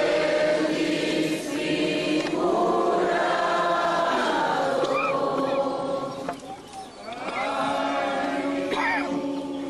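A group of voices singing a slow hymn together in long drawn-out phrases, with a short break about two-thirds of the way through.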